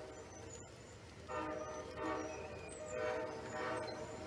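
Locomotive air horn sounding a chord in a quick series of about four short blasts, starting about a second in, over the low rumble of the passing train.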